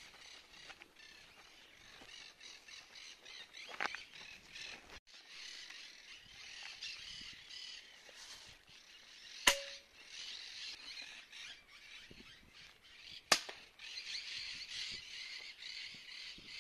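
Two sharp air rifle shots about four seconds apart, the first followed by a short ring. Birds chatter and call steadily throughout.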